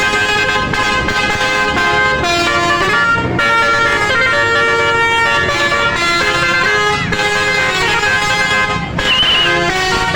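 Indonesian 'telolet' bus horn, a multi-tone musical horn, sounding loudly and stepping through a tune of held notes, with a brief break about nine seconds in.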